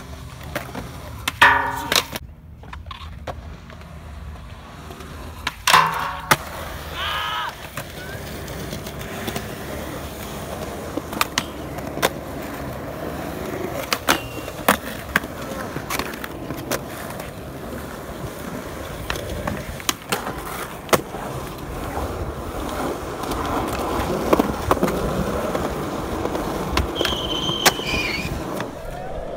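Skateboard wheels rolling over concrete, with many sharp pops, board clacks and landings as tricks are tried on a metal handrail; two louder ringing hits come in the first several seconds.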